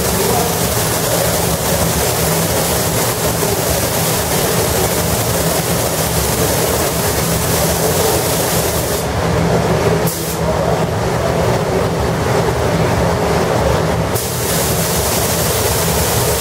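Robotic spray gun hissing over the steady rumble of paint-booth machinery; the spray hiss cuts out briefly about halfway through, then again for a few seconds before starting up once more.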